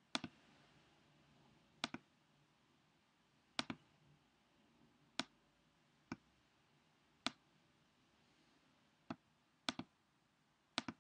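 Faint computer mouse button clicks, about nine of them spaced a second or two apart, several coming as quick double clicks. They are made while selecting and scrolling on screen.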